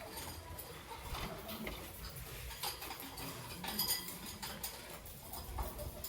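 Faint, scattered light clicks and taps from a young peach-faced lovebird moving about its cage, with a quick cluster of clicks about four seconds in.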